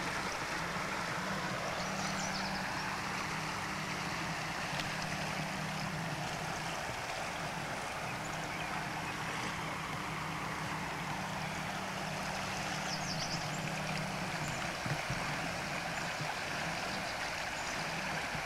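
Steady rush of a creek flowing under the bridge, with a low steady hum underneath.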